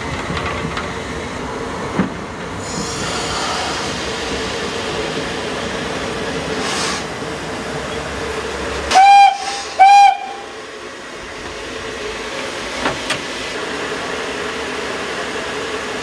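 Steam locomotive whistle sounding two short, loud blasts nearly a second apart, over a steady hiss.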